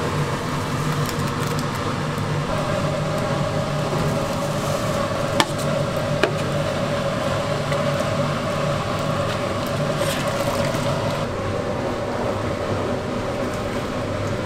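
Steady hum and rush of a large gas burner under a big pot of boiling soup, while a steel ladle stirs ground loach paste into it. Two sharp metal clinks come about five and six seconds in.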